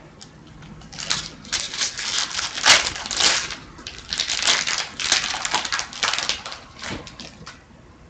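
Foil wrapper of a hockey trading-card pack being torn open and crinkled in the hands: a run of papery crinkling rustles that starts about a second in and dies away near the end.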